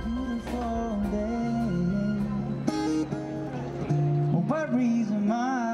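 A man singing while playing an acoustic guitar, ending on a held note with vibrato.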